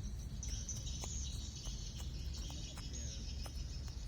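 Insects and birds chirping in a steady high-pitched chorus, over a constant low rumble, with a few faint clicks.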